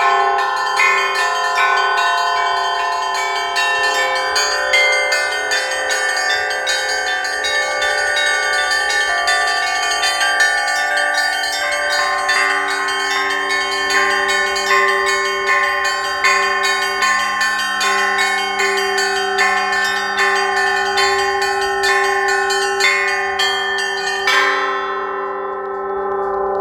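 Russian Orthodox church bells rung fast, with bila struck among them, in many quick overlapping strokes. About two seconds before the end the striking stops and the bells ring out in a steady hum.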